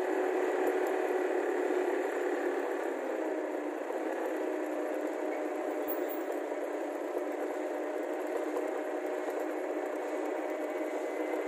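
Motorcycle tricycle riding along, its small engine running steadily under a rattle of the body and road noise; the engine note eases a little lower about three seconds in.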